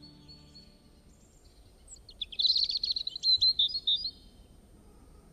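A small songbird singing a quick twittering phrase of rapid high chirps, lasting about two seconds and starting a couple of seconds in, over faint outdoor background.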